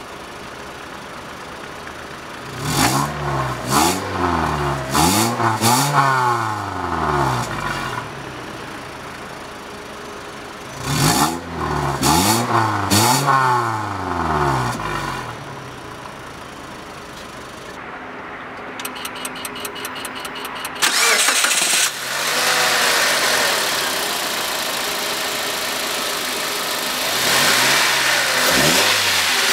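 2003 Mitsubishi Colt engine idling at the tailpipe and revved in two sets of quick blips, each rev rising and falling. Later, heard from the open engine bay, it runs louder and is revved again near the end.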